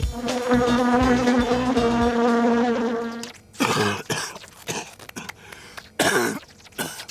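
A fly buzzing steadily for about three seconds, then several harsh coughs in separate fits: a chesty cough that is called a bronchial cough.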